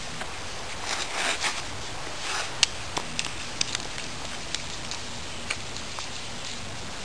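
A small PVC-pipe raft dragged over a forest floor: rustling and scraping through dry leaves and twigs, with scattered sharp clicks and ticks. The loudest is a crack about two and a half seconds in.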